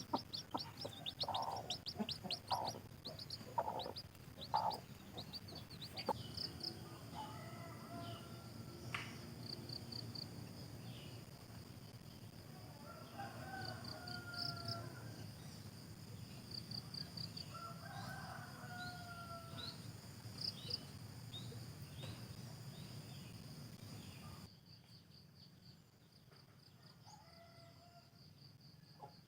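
Chickens: hens clucking in short bursts at first, then a rooster crowing twice in long drawn-out calls. Under them runs a steady high chorus of crickets with small birds chirping. Everything turns quieter near the end.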